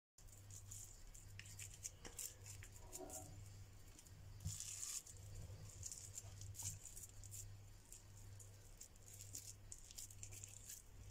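Hands squishing and patting raw minced-meat kofta mixture, shaping it into patties: faint, irregular wet clicks and crackles over a steady low hum.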